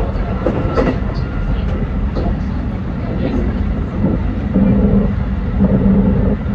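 JR 313 series electric train running on the rails, a steady low rumble with scattered light clicks and rattles. About four and a half seconds in a steady hum joins the rumble.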